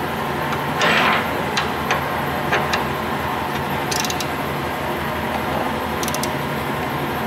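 Hand ratchet wrench clicking in two short runs, about four and six seconds in, as the bolts of a running-board bracket on the truck's frame are turned by hand. A few metal clinks and knocks come in the first few seconds, over a steady low hum.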